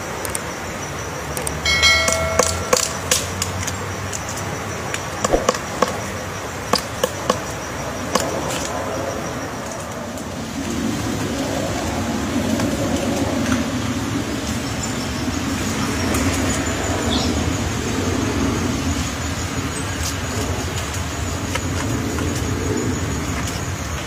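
Pileated woodpecker excavating a nest cavity in a tree trunk: sharp, irregular pecking knocks in clusters through the first eight seconds or so, with a brief pitched tone near the start. From about ten seconds in, a steady low rumble takes over.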